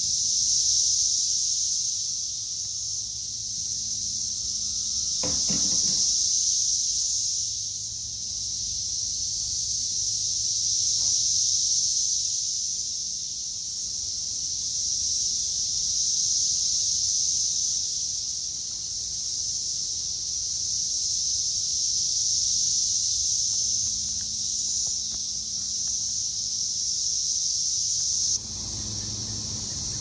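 Dense chorus of Brood X periodical cicadas: a loud, steady high-pitched drone that swells and fades in slow waves every few seconds. There is one short knock about five seconds in.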